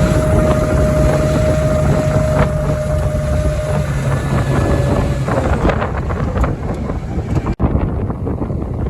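Farm tractor engine running steadily under load, a low hum with a held whine above it; about five seconds in the whine stops and the sound turns rougher and windier, with wind rushing on the microphone. Near the end the sound cuts out for an instant.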